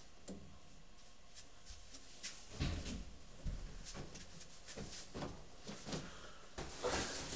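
A large cardboard box being taken hold of, shifted and lifted, a string of soft bumps, scrapes and rustles, after a faint click from the door near the start.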